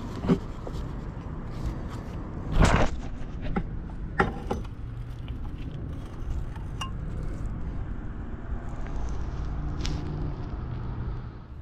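Low, steady rumble of a vehicle heard from inside the cab, with a few knocks and clinks, the loudest about two and a half seconds in.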